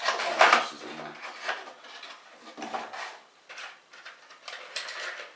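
Cardboard packaging of a CPU cooler and the small parts inside it being handled: scattered rustles, knocks and clicks, the loudest just under half a second in.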